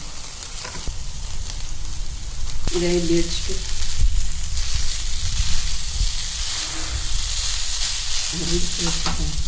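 Stir-fried noodles and vegetables sizzling in a hot non-stick pan as a wooden spatula and a steel spoon toss them, with a few knocks of the utensils against the pan.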